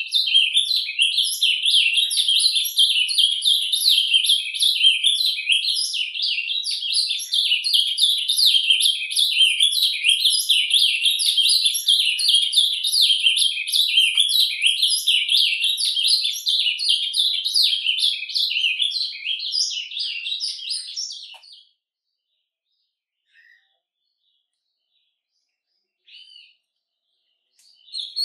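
Male ultramarine grosbeak (azulão) singing 'surdina': a rapid, unbroken, rambling twittering warble. It breaks off about three quarters of the way through, leaving a couple of faint short notes, and starts again at the very end.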